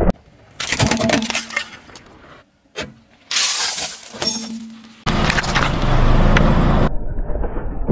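A car tyre rolling over and crushing small objects: crackling, crunching and cracking as hard candy shells and plastic give way under the wheel. The sound is cut into several separate crushes that change abruptly, a few seconds apart.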